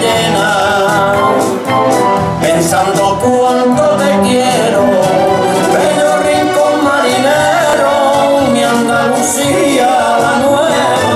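Pasodoble song: male voices singing over a full instrumental backing.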